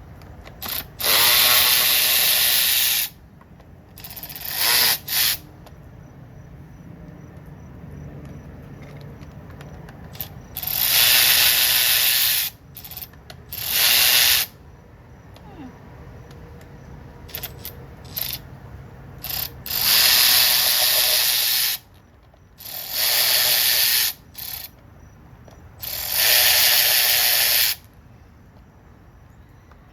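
Ratchet wrench clicking in repeated bursts of a second or two as fasteners on a STIHL 020T chainsaw are turned out during disassembly.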